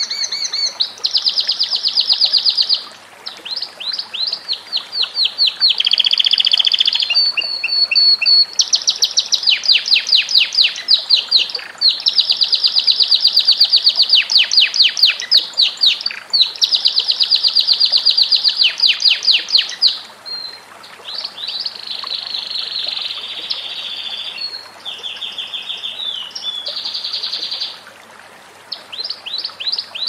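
Domestic canary singing a long, continuous song of fast trills, each a rapid run of repeated high notes, switching from one trill to the next every second or two with only brief pauses.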